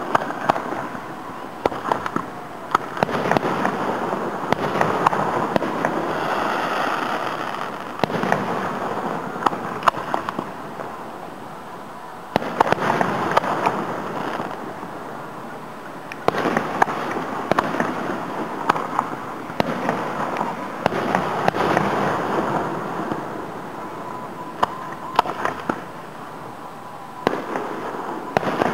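Aerial fireworks display heard from about a quarter mile away: many sharp bangs of bursting shells, some in quick clusters, over a rushing noise that swells and fades every few seconds.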